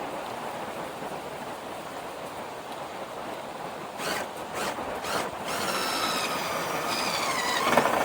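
Steady rushing noise, then several sharp clicks about four seconds in. A small motor's whine follows and slides steadily down in pitch toward the end, as a cordless driver does while running in a screw.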